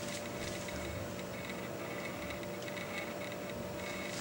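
Quiet indoor room tone with a faint steady hum and no distinct sound events.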